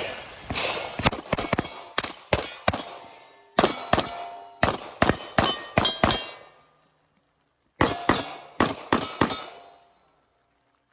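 Rapid pistol shots at steel targets, each hit leaving the steel plate ringing. The shots come in three quick strings with short pauses between, and stop a little before the end.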